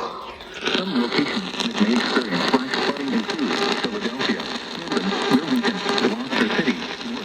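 NOAA Weather Radio broadcast: the automated voice reads on through a steady radio hiss that leaves its words hard to make out. The voice comes in about half a second in, after a short dip.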